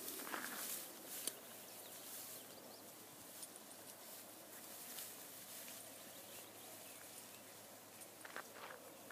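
Faint rustling of tall grass as a black Labrador bounds through it, over a steady outdoor hiss, with a few short rustles near the start and again near the end.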